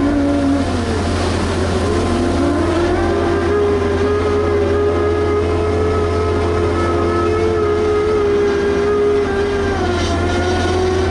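Liebherr HS 8200 dragline's machinery running steadily under load: a continuous low engine drone with a whine over it that rises in pitch a couple of seconds in and falls slightly near the end.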